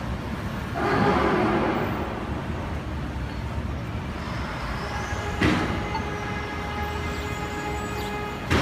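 City street traffic with a heavy vehicle running: a low rumble throughout and a rush of air noise about a second in. About halfway there is a sharp knock, followed by a steady whine of several tones lasting about three seconds, and another knock near the end.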